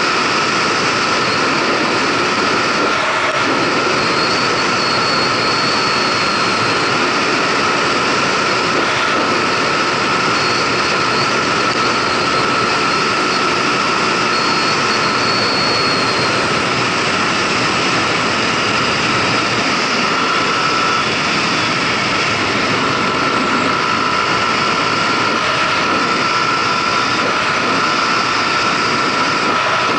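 Kymco Agility City 125 scooter riding at a steady cruise of about 80 km/h: its single-cylinder four-stroke engine running under constant load, mixed with heavy wind rush over the action camera's microphone. A steady high whine runs through the noise.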